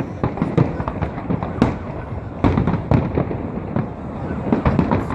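Aerial fireworks bursting in quick succession: a dense run of booms and crackling reports with many sharp bangs a second.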